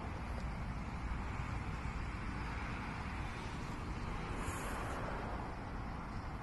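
Steady vehicle traffic noise, a low engine rumble, with a brief hiss about four and a half seconds in.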